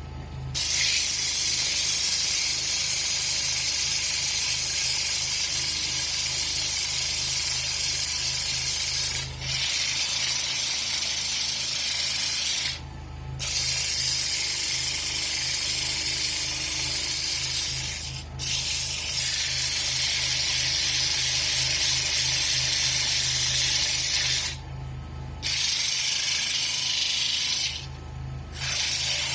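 Wood lathe running with a pine bowl spinning on it, the work against the turning wood giving a steady high hiss in long stretches. The hiss breaks off briefly about five times while the lathe's low hum carries on.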